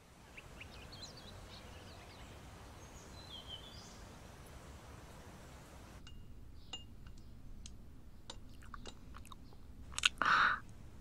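Soft room ambience with faint bird chirps. About halfway through come light clicks of chopsticks against dishes, then a louder eating sound near the end as food is bitten and chewed.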